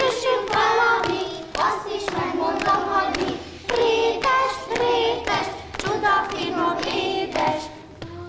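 A group of young children singing a song together in unison, with hand claps along with the singing.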